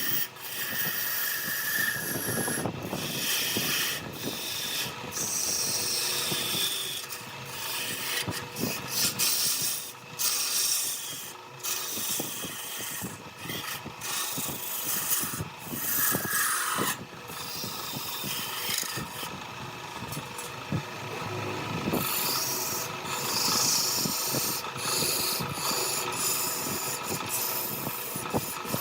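Wood being worked on a spinning lathe, a turning tool cutting and scraping the workpiece. It makes an uneven hiss broken by many short clicks and knocks, rising and falling as the tool bites.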